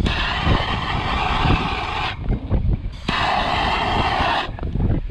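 Handheld gas soldering torch hissing in two bursts, the first about two seconds and the second about a second and a half, each switching on and off sharply as it heats a twisted wire splice. Low wind rumble on the microphone underneath.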